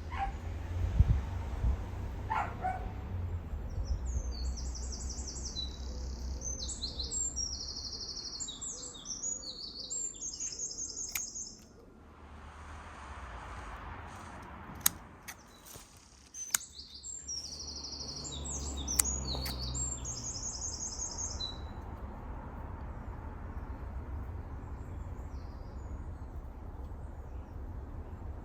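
A small songbird singing in fast, high trilled phrases, in two bouts with a pause between. There is a low rumble underneath.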